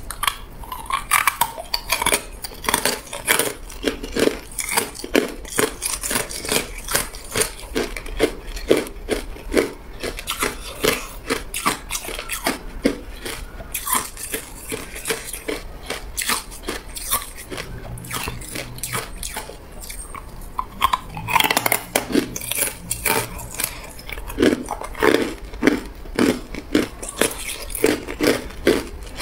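Hard ice cubes being bitten and chewed, a long run of sharp, closely spaced crunching cracks as the ice breaks between the teeth.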